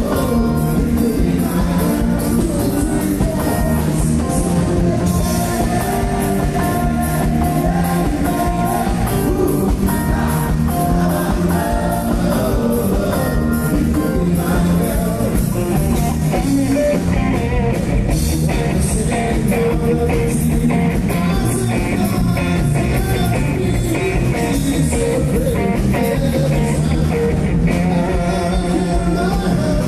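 Live band playing loud amplified music with singing over a steady beat.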